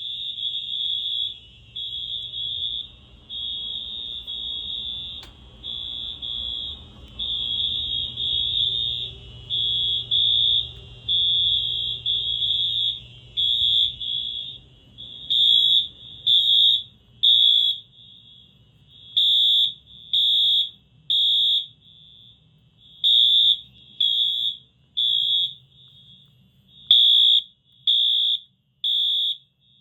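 Several Wheelock MT fire-alarm horns sounding together in a high-pitched electronic tone. For the first half they beep out of step with one another. From about halfway they pulse in unison in groups of three beeps and a pause, the temporal-three evacuation pattern.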